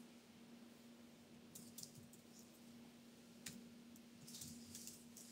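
Faint laptop keyboard typing: scattered key clicks, a few at a time, over a steady hum.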